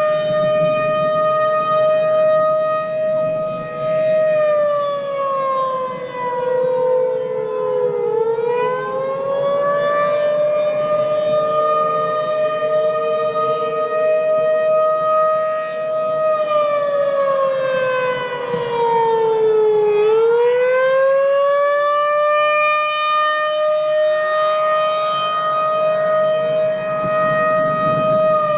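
Warning siren wailing: a long steady tone that slowly falls in pitch and climbs back, twice, about twelve seconds apart, and begins to fall again near the end.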